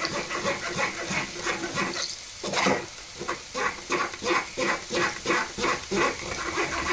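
A spoon pressing and scraping cooked apples through a sieve in a pot, making wet, squelching strokes about twice a second as the coarse pieces and cores are sieved out for apple sauce.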